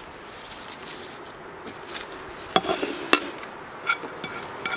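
Small hand rake scratching and raking through moist worm compost and shredded newspaper in a plastic worm bin. From about halfway through come several sharp taps and scrapes as food scraps are knocked off a plate into the bin.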